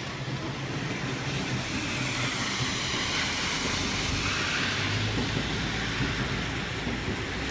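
A Hakodate streetcar running towards the stop on street-running track, its wheels and motor slowly growing louder over the hiss of rain and wet road.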